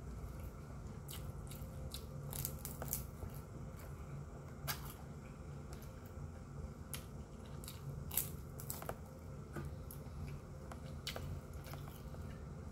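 Close-up eating sounds: chewing and mouth clicks while fingers tear crispy fried chicken on a plate, with scattered sharp clicks throughout. A low steady hum runs underneath.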